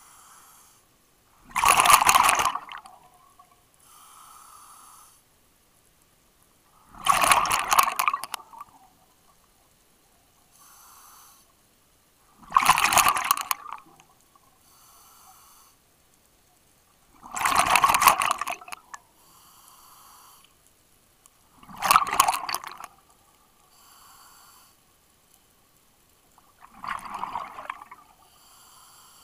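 Scuba diver breathing through a regulator underwater: six loud rushes of exhaled bubbles, about one every five seconds, with a quieter hiss of inhalation between them.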